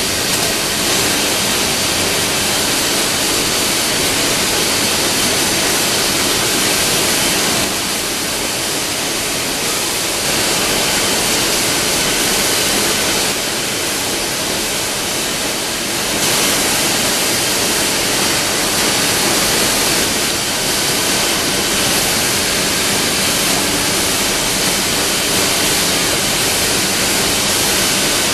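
WEEKE CNC woodworking machining centre running: a steady, loud rushing noise with faint steady tones in it. It eases off slightly for several seconds in the middle.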